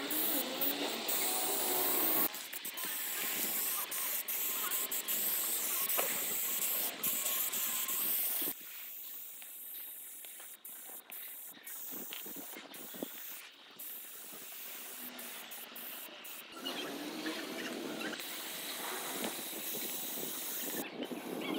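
Aerosol spray paint cans hissing in short and long bursts with brief breaks between them as paint goes onto a wall. The hiss is quieter through the middle stretch and louder again near the end.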